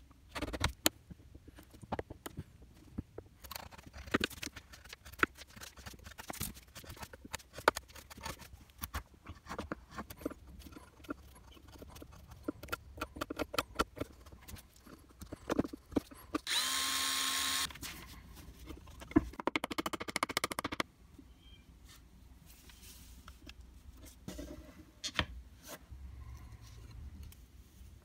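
A steel chisel pares and scrapes a plywood step, giving many short, irregular scrapes and clicks. A power tool runs steadily for about a second past the middle.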